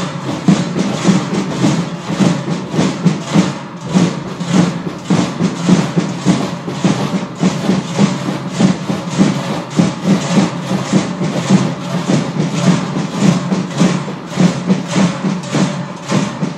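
Trycheln, large forged cowbells, clanging together in a steady rhythmic beat with drums.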